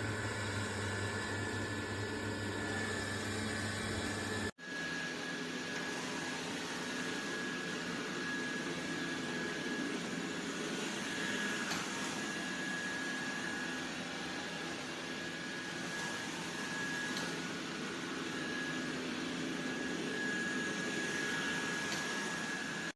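Dreame robot vacuum running: a steady whir with a thin, high, constant whine, briefly cut off about four and a half seconds in.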